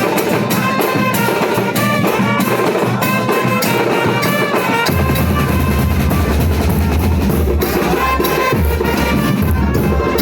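Music with brass and drums; a heavy bass line comes in about halfway through.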